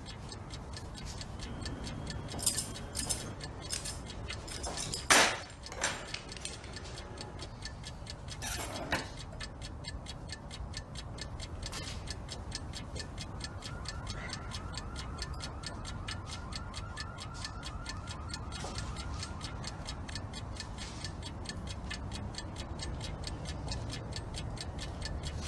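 Wall clock ticking steadily in a quiet room, with a few louder knocks in the first nine seconds, the loudest about five seconds in.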